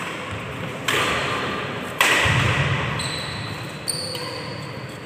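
Badminton rally on an indoor wooden court: two sharp racket hits on the shuttlecock, about one and two seconds in, each trailing off in the hall's echo, with a thud of footwork under the second. A high squeak of shoes on the wooden floor follows in the second half.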